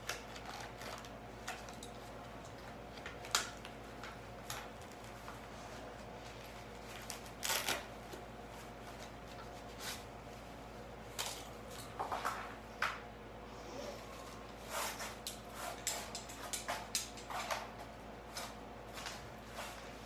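Scattered clicks and short rustles of hands working plastic zip ties and a bike repair kit, in uneven clusters, over a steady low hum.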